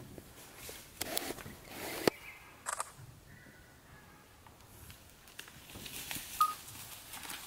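Dry leaves and undergrowth rustling and crackling in a few separate bursts, with one sharp snap about two seconds in, and a short bird chirp about six seconds in.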